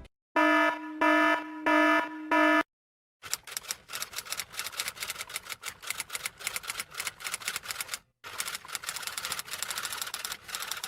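Four pitched electronic beeps, then rapid, uneven typing clicks that run for several seconds with one brief pause.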